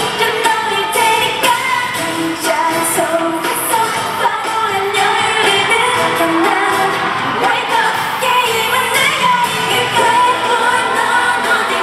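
Live K-pop concert performance: female group vocals sung into microphones over a pop backing track with a steady beat, loud through the venue's sound system.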